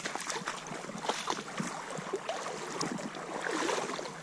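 Feet wading through shallow creek water, with a run of irregular splashes and sloshes.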